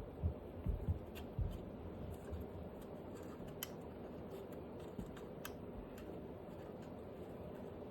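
Hands handling packaging: a few soft knocks in the first second and a half, then scattered light clicks, over a steady low hum.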